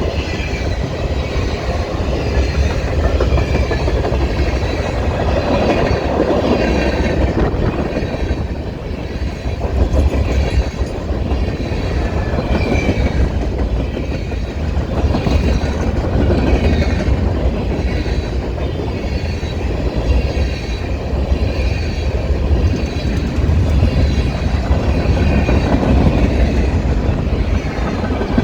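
Cars of a CPKC freight train rolling past, their wheels clattering over the rail joints in a steady clickety-clack with a faint wheel squeal. Wind buffeting the microphone adds a low rumble throughout.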